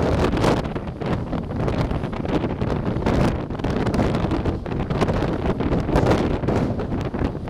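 Wind buffeting the camera's microphone, a loud gusting rush that swells and dips unevenly.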